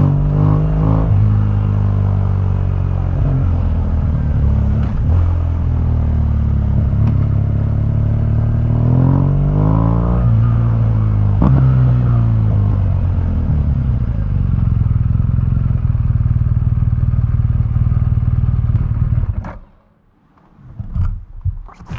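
BMW R1200GS boxer-twin engine through its stock exhaust, its pitch rising and falling a few times, then running steadily before it stops suddenly about 19 seconds in. A few short knocks and clatter follow near the end.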